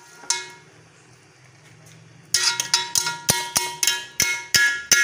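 A metal utensil knocking against a steel cooking pot, each strike ringing: one strike near the start, then a quick run of about a dozen strikes, roughly four a second, through the second half.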